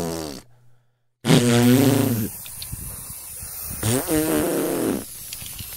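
Two low vocal sounds with falling pitch, the second about a second in, then the steady hiss of an aerosol spray-paint can spraying, broken by a short excited 'yeah!' and hissing again near the end.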